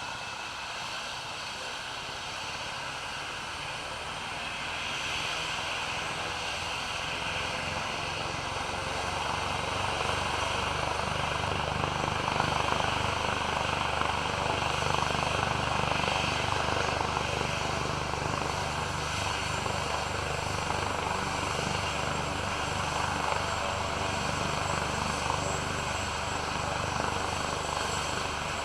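Helicopter engine and rotor running, growing louder over the first ten seconds or so and then holding a steady beat.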